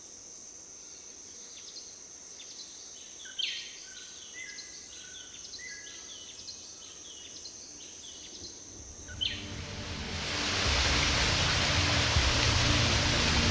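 Rainforest ambience: a steady high insect drone with birds calling, in short downward-sliding calls and brief whistles. About nine seconds in, this gives way to a much louder, even rushing noise like rain or falling water, with music coming in underneath.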